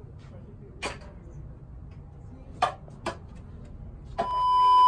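Quiet room tone with three short sharp clicks, then about four seconds in a loud, steady electronic beep tone starts and holds.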